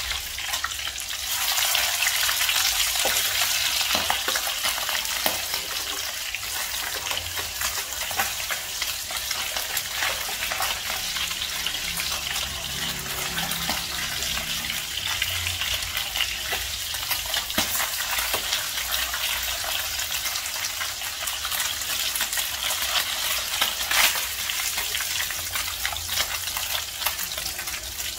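Fish steaks frying in hot oil in a pan: a steady sizzle that grows louder a second or two in, with a metal spatula scraping and clicking against the pan as the pieces are turned.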